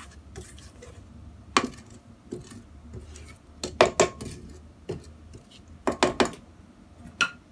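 Silicone spatula scraping down a stainless steel stand-mixer bowl of batter, with a few sharp knocks as it strikes the bowl and paddle, two of them close together about four seconds in and again about six seconds in.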